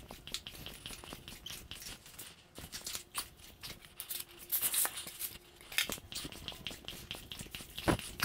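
Floor pump inflating a BMX tire toward about 70 PSI: scattered clicks and knocks of the pump and its hose, with short hisses of air around the middle and a sharper knock near the end.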